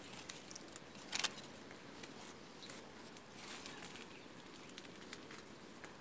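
Mango leaves rustling and crackling as a hand brushes through the foliage, with one louder rustle about a second in.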